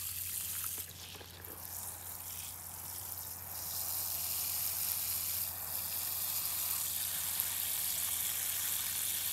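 Water spraying from a garden hose shower nozzle onto wet potting soil, a steady hiss that softens about a second in and picks up again by about four seconds. This is the heavy first watering of newly potted cuttings.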